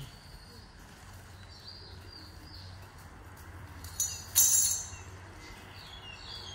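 A short metallic clink and jingle about four seconds in, from the chain on a young Asian elephant's leg as it steps, over faint bird chirps.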